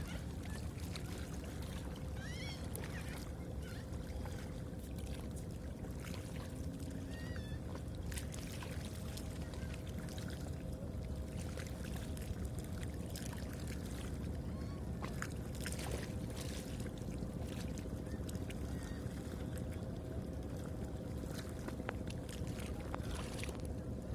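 River water running steadily, with scattered faint ticks and a couple of short high chirps about two to three seconds in.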